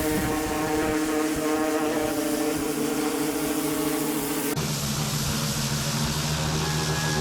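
Steady machine hum from a motor or pump. About four and a half seconds in it changes abruptly to a different, lower hum.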